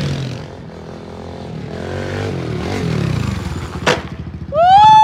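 Dirt bike engine revving up, its pitch climbing as the rider accelerates into a wheelie, with a sharp click just before the end. Then a person's loud, drawn-out excited shout.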